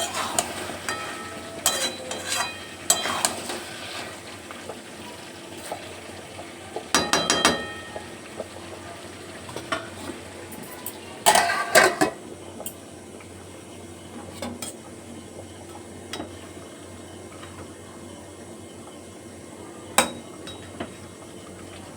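A metal utensil scraping and clinking against a cooking pot in bursts of stirring: near the start, about seven seconds in, around eleven to twelve seconds, and one clink near the end. Underneath, a steady low sizzle of chicken cooking in the water it has released.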